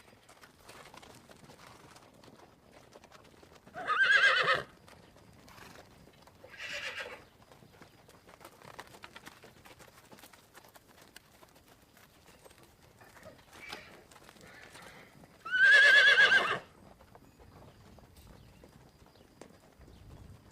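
Horse whinnying: two loud whinnies, about four seconds in and near sixteen seconds, each about a second long with a quavering pitch, and a shorter, quieter call in between. Faint clicks and knocks fill the gaps.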